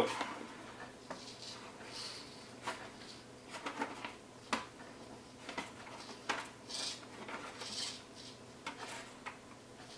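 Light handling noises from a foam model airplane being moved and set down on a couch: scattered small clicks and brief rubs, about one every second.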